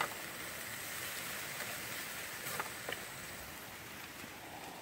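Pork butt steaks sizzling on a small grill over a wood fire, a steady hiss with a few faint ticks.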